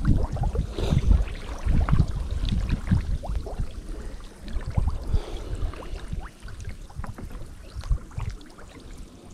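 Water sloshing and splashing in irregular bursts with low knocks, louder at first and quieter in the second half.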